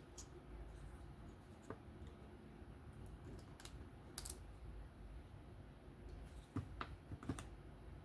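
Faint, scattered small clicks and taps of a small driver and knife parts being handled while a pocket clip screw is driven into a folding knife.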